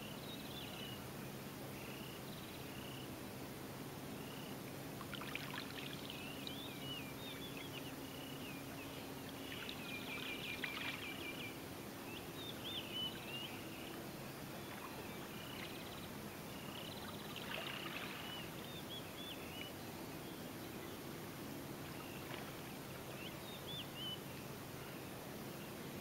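Birds singing: short chirps repeated every second or so, with bursts of quick twittering several times, over a faint steady low hum.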